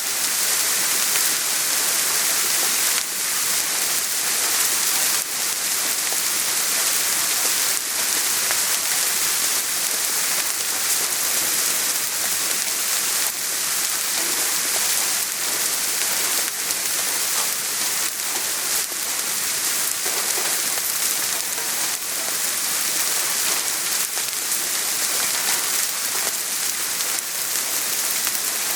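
Steady soft rain falling, an even hiss of many small drops pattering on a surface.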